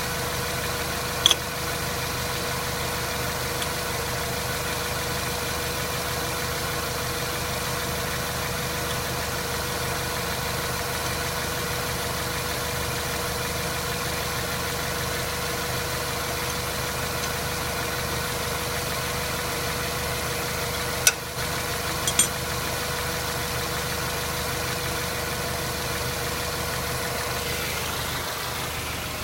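Mazda 3 with an automatic gearbox running steadily, with a steady tone over the engine note; the gearbox has a knock when coasting off the throttle that goes away under load. A sharp click sounds about a second in, and two more about a second apart later on.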